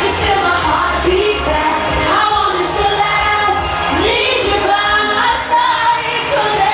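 Live amplified dance-pop song: a woman sings the lead with long, gliding notes over a loud club beat with heavy bass.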